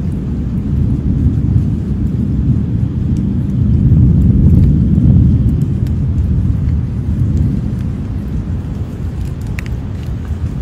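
Crocodile giving a low, continuous rumble from beneath the water, the vibration making the surface over its back shimmer. The rumble swells about four seconds in, then slowly fades.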